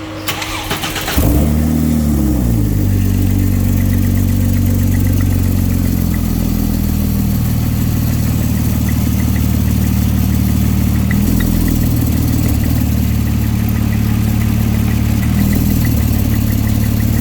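Porsche 997 Turbo's twin-turbo flat-six cranked by the starter for about a second, catching with a brief rev flare, then settling into a steady idle. A faint, regular high tick runs over the idle.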